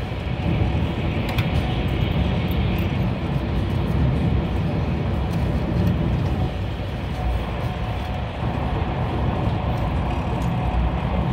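Steady low rumble and rush of a high-speed train running at about 200 km/h, heard inside the passenger cabin.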